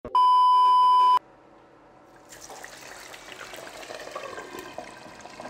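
An electronic beep: one steady, high tone held for about a second, then cut off. About two seconds in, a faint hiss of background noise begins.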